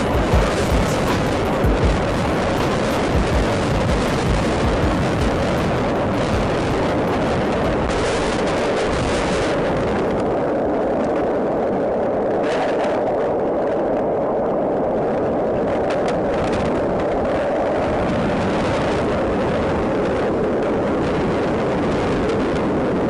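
Steady, loud roar of tornado-force wind, with a few low thumps in the first couple of seconds.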